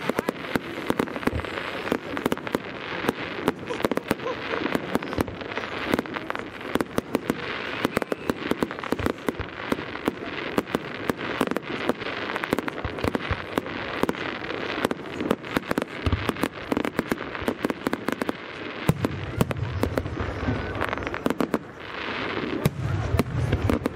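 Professional fireworks display: dense, rapid crackling from many small bursts all the way through, with deeper booms coming in twice near the end.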